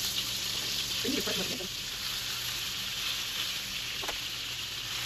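Asparagus-stuffed chicken thighs searing in hot oil in a skillet, a steady sizzle. A brief murmur of a voice comes about a second in, and a light click near the end.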